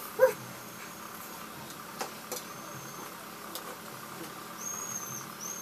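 Mostly quiet room tone. A short vocal exclamation from a person comes right at the start, then a few faint clicks and several faint, thin high-pitched whistling tones.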